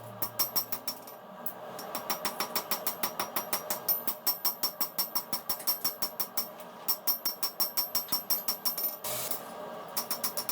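Hammer blows on steel, fast and evenly spaced at about five a second, each with a bright metallic ring, as a knife blade is forged. The hammering pauses briefly about a second in and again near seven seconds.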